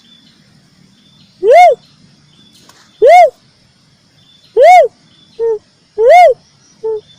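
Cuckoo-dove (uncal, gedewo) lure call: loud single hooting notes that rise and fall, repeated about every one and a half seconds. A short, softer note falls between the last few calls.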